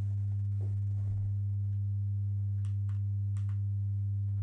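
Steady electrical mains hum, strongest around 100 Hz with a ladder of evenly spaced overtones above it, on an otherwise quiet recording. A few faint clicks sound between two and a half and three and a half seconds in.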